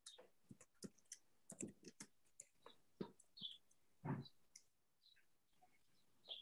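Faint, irregular clicks and ticks, several a second, with no steady background.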